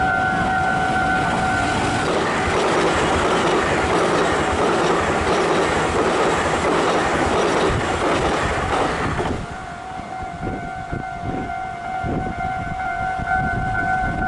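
A level-crossing warning alarm sounds a steady electronic tone. About two seconds in, an electric multiple-unit commuter train passes close by at speed, and its wheel and rail noise drowns the alarm. The train noise cuts off abruptly after about nine seconds, leaving the alarm ringing on with a few fading wheel knocks.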